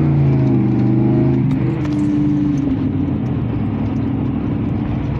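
Car engine running hard under acceleration, heard from inside the cabin; its note shifts in pitch about a second and a half in, then holds steadier.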